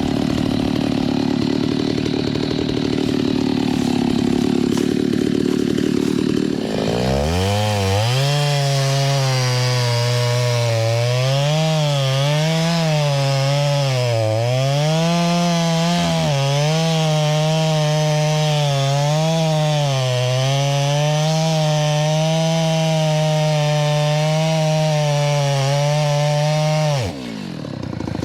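Stihl MS 390 two-stroke chainsaw running slowly, then revved up about seven seconds in and held at high throttle while cutting through a red oak log. The pitch sags and recovers repeatedly as the chain bites, then falls back near the end.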